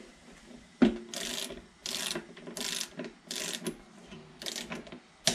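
Hand socket ratchet being worked in short strokes, tightening the fuel pump flange bolts on a Suzuki SV1000 fuel tank: a sharp click about a second in, then about five short bursts of ratcheting, and another click near the end.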